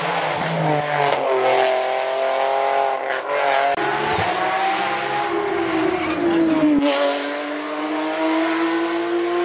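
Nissan 370Z hillclimb car's engine at full throttle as it climbs past. Its note rises and breaks sharply at gear changes, about four and seven seconds in.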